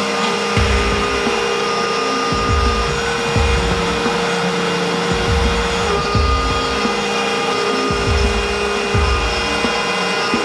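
A CNC router spindle running steadily with a constant whine, cutting, with background music underneath.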